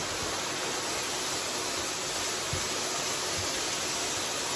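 Beef steak sizzling in a frying pan: a steady, even hiss, with a faint knock about halfway through.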